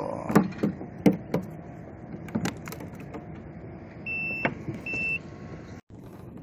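A small freshly caught fish flapping against a plastic kayak's bow hatch, making a few sharp knocks in the first three seconds. Two short high beeps follow about four seconds in.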